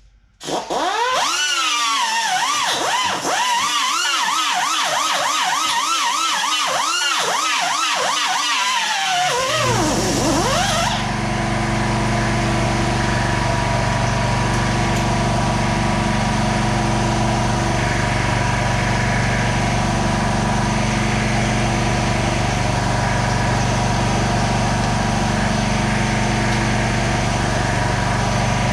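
A siren in a rapid up-and-down yelp for about the first ten seconds. It then gives way to a steady mechanical hum with a constant low drone, like a motor running, for the rest.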